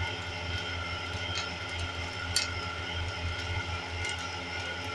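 A steady low hum with a few faint clicks and ticks.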